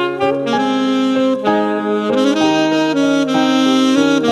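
Instrumental background music: a melody of held notes that change every half second to a second, over sustained lower notes.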